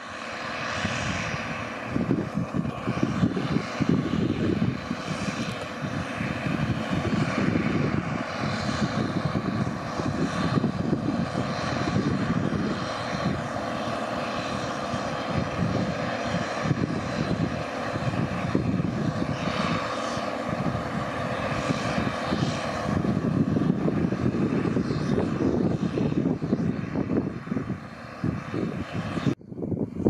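Case International Axial-Flow 1660 combine harvester working through barley, its engine and threshing machinery running with a steady drone and a faint whine. The sound breaks off briefly near the end.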